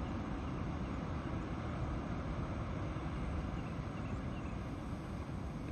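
Wind rumbling on the microphone: a steady, flickering low rumble of outdoor noise.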